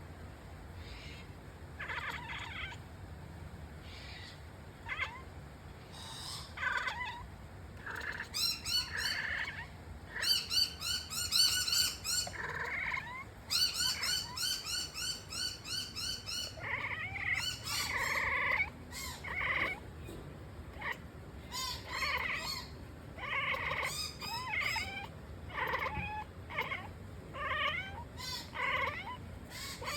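A cat chattering at birds: rapid trains of short, chirping calls, densest and loudest about a third of the way in, then shorter scattered bursts. It is the chatter cats make when their hunting instinct kicks in at prey they see or hear.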